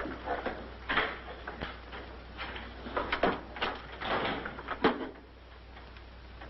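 A series of irregular knocks and thumps, the loudest just before five seconds in, after which they stop.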